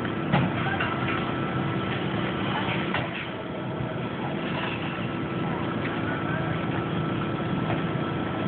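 Steady mechanical drone of an engine or motor running, with a couple of sharp metallic knocks, the loudest about half a second in and another about three seconds in.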